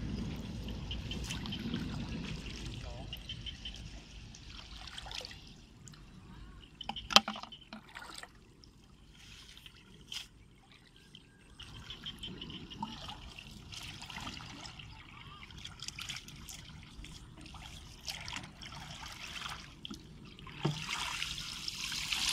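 Shallow paddy water trickling and sloshing as it is stirred by hand and by a person wading, with scattered small splashes and knocks. A sharp knock about seven seconds in, and louder splashing near the end as a plastic container trap is pushed through the water.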